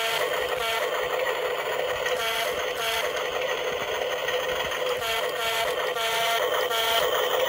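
Background music: an electronic tune with a synthetic, voice-like melody.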